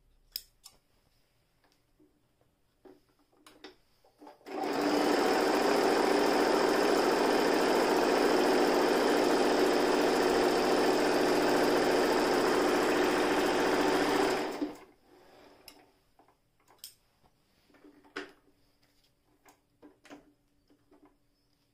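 Toyota Jeans JS021 electric sewing machine running steadily for about ten seconds, stitching through fabric, then stopping. A few light clicks come before and after it.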